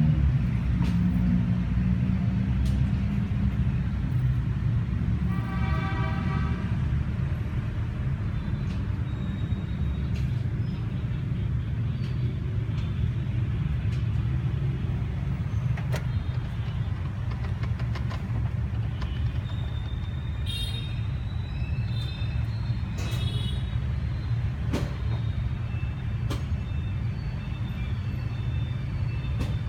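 Steady low rumble of road traffic. A vehicle horn sounds once, for about a second, about six seconds in.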